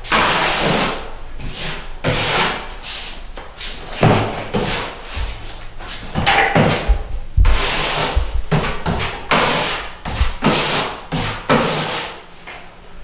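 Drywall knife scraping joint compound along a drywall seam in irregular strokes, about one a second, filling the gap and scraping off the excess.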